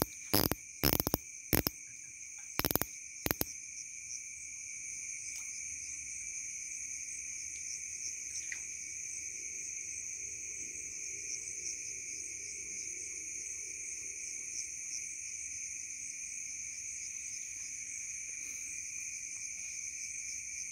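A steady, shrill chorus of crickets and other night insects, trilling at two pitches throughout. In the first few seconds, about six sharp loud clicks or knocks cut through it.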